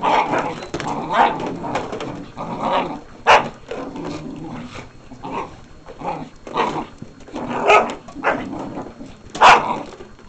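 Dogs growling and barking as they attack a switched-off vacuum cleaner, biting at its floor head. The growling runs throughout, broken by a few short sharp barks, the loudest near the end.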